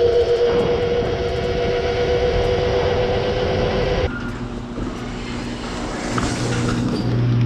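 Razor MX500 electric dirt bike, its stock motor overvolted to 48 V, whining steadily at speed while being ridden. The whine cuts off abruptly about four seconds in, and a lower steady hum builds near the end.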